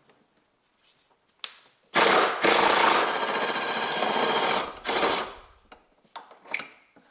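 A power wrench on a long socket extension running for about three seconds with a fast, even rattle and hiss, loosening a 14 mm bolt of the engine's right-side mounting. It starts about two seconds in, after a single click, and stops abruptly.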